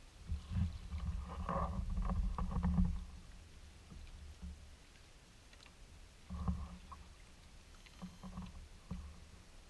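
Kayak paddling on calm water: paddle blades dipping and splashing, with water sloshing against a plastic hull. It is loudest for the first few seconds, then a few shorter splashes follow later on.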